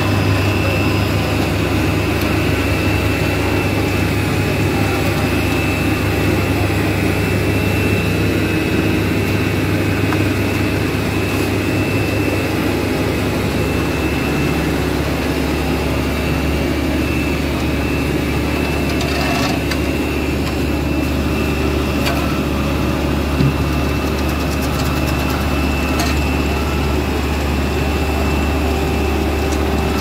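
Asphalt paver's diesel engine running steadily at close range while paving, a deep hum with a steady high whine over it.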